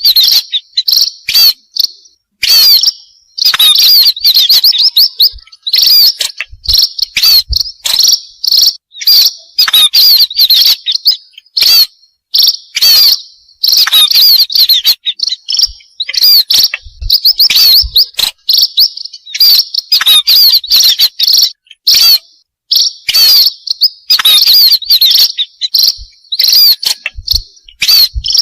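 Lure recording of pipit birds (small seed-eating finches such as munias and sparrows) chirping: dense, rapid, high-pitched chirps in loud bursts with short breaks between them.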